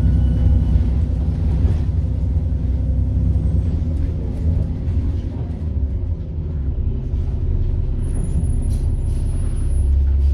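Turbocharged diesel bus engine running, heard from on board as a steady low drone. A thin high turbo whine slides down and fades over the first few seconds, and a brief high whine returns about eight seconds in.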